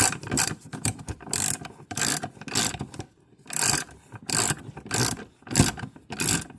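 Socket ratchet wrench turning bolts down, clicking in short back-and-forth strokes, about one and a half a second, with a brief pause near the middle.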